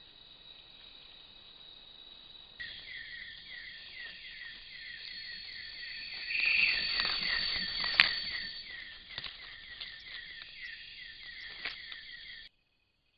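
Night rainforest insects calling: a constant high buzz with short falling chirps about three a second. In the middle come louder rustling and a sharp click as a Malayan porcupine walks through dry leaf litter.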